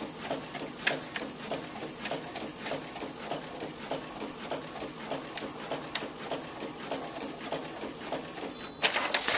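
Brother printer printing a page, its print mechanism running in a steady rhythm of about three strokes a second with scattered clicks, then a louder clatter near the end as the page comes out.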